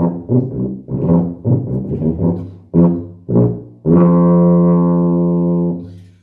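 Sousaphone playing a short tune of separate low notes, ending on one long held note about four seconds in that fades away near the end.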